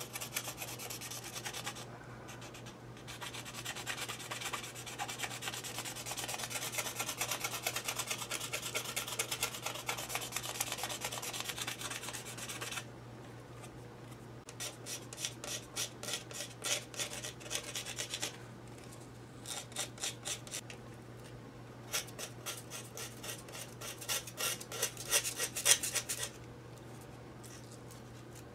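A small knife scraping the barbs off a feather quill's shaft in fast, rasping strokes: a continuous run for about the first thirteen seconds, then short bursts of quick strokes with pauses between them.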